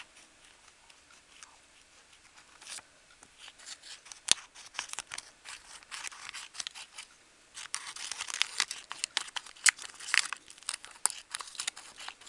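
Small scissors snipping through clear book-covering plastic glued over card, with the plastic sheet crinkling as it is handled. The snips come in quick runs, sparse at first and much thicker in the second half.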